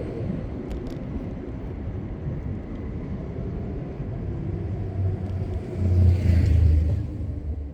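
Street traffic heard from a bicycle: a steady low rumble that swells to its loudest about five to seven seconds in, as a motor vehicle passes close by.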